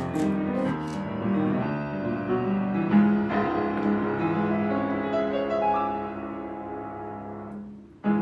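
Background piano music, a sequence of sustained notes that fades down near the end and then starts again.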